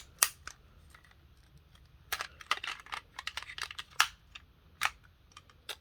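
Hard plastic clicking and rattling of a Beyblade launcher and its parts being handled and fitted together, with a quick run of small clicks about two seconds in and a few single sharp clicks.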